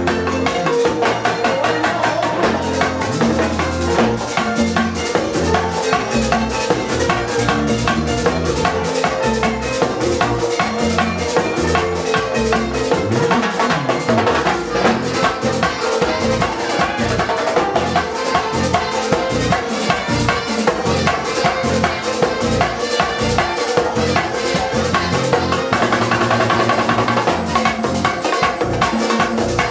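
Live Latin band music with a steady, busy percussion beat: hand-played bongos, with guitar and keyboard.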